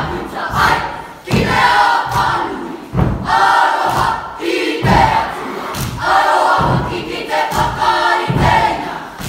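A Māori kapa haka group chanting a haka in unison, loud shouted phrases broken by short gaps, with thumps of stamping and slapping in time.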